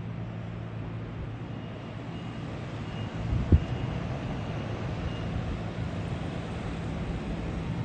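Steady road traffic heard from high above a busy road, with a low continuous hum, and a single sharp thump about three and a half seconds in.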